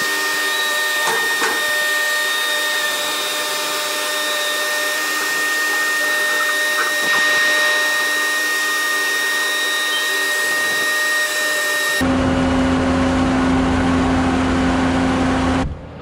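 Bobcat skid loader running as it lifts and tips the steel windbreak panel, a steady machine whine. About twelve seconds in it cuts abruptly to a lower, steady engine hum, which stops suddenly near the end.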